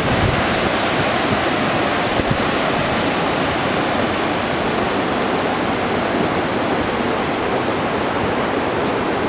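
Flood-swollen river rushing over rocks and debris, a steady loud rush of water.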